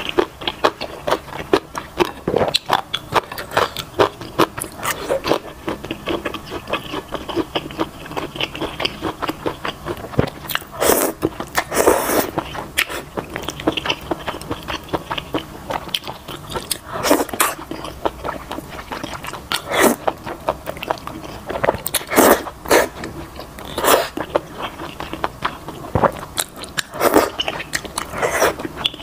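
Close-miked chewing and slurping of wide potato noodles and malatang: a steady run of small wet mouth clicks, broken by several louder slurps.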